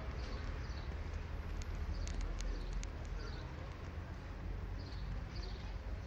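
Outdoor street ambience: small birds chirping in short high calls every second or so, a few sharp clicks, and a steady low rumble under it all.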